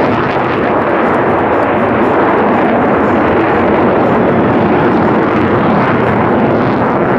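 Jet engine noise from a pair of military display jets, loud and steady without a break.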